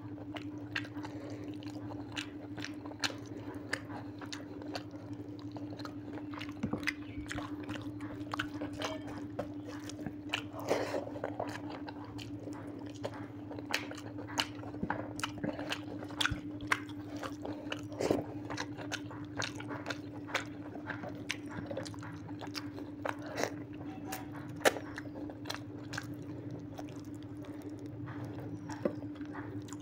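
Close-miked eating of mutton curry with rice and dal by hand: wet chewing and lip-smacking with frequent sharp clicks and crunches as pieces of mutton are bitten. A steady low hum runs underneath.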